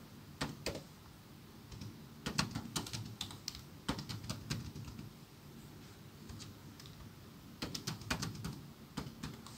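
Computer keyboard keys clicking as text is typed, in short quick runs of keystrokes with a pause of a couple of seconds in the middle.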